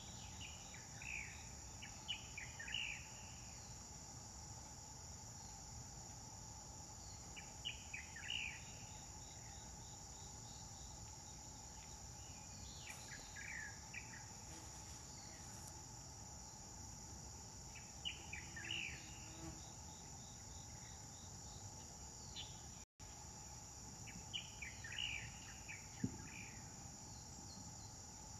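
Steady high-pitched insect chorus, with a bird giving a short burst of descending chirps about every five seconds. A single sharp click sounds near the end.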